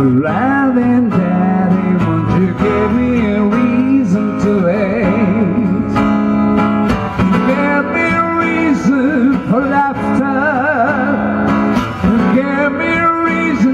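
A man singing a song live over acoustic guitar, his voice wavering with vibrato on held notes.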